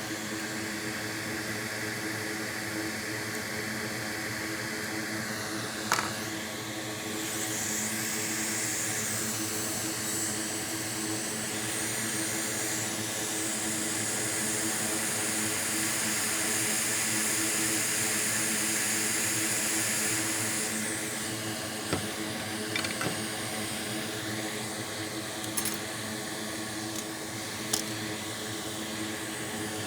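Hot air rework station blowing a steady hiss over a steady fan hum, with the hiss strongest from about seven seconds in to about twenty-one seconds in. A few light clicks, the kind tweezers or a tool make against the board, fall near the start and in the last third.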